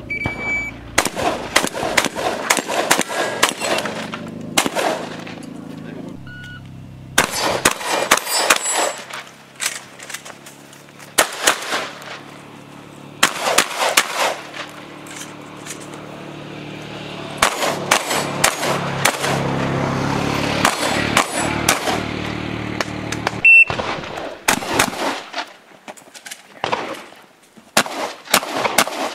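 Strings of shotgun shots fired in quick succession, several a second, in bursts separated by short pauses. A shot timer's short start beep sounds just after the start.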